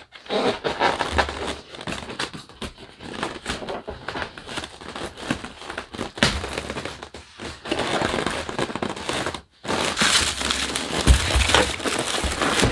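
Crinkling and rustling of a large toy's packaging being handled and opened, with a short pause about nine and a half seconds in and louder handling after it.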